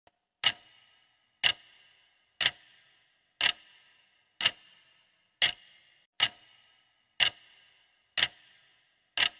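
Clock-tick sound effect marking a countdown timer: one sharp tick about every second, ten in all, each with a short ringing tail.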